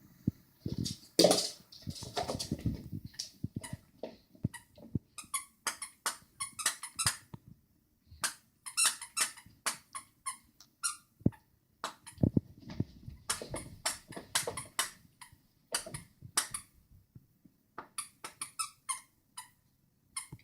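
A squeaky dog toy squeaked over and over in quick, irregular runs of short, high squeaks, broken by a couple of brief pauses.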